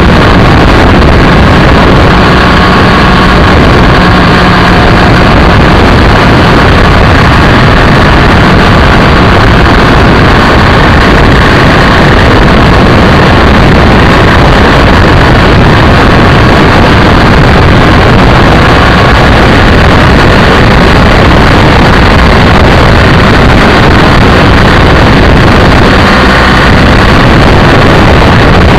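BMW F800ST motorcycle riding at road speed, heard through a camera mounted low on the bike: a loud, steady rush of wind and road noise over the microphone, with the 798 cc parallel-twin engine running underneath.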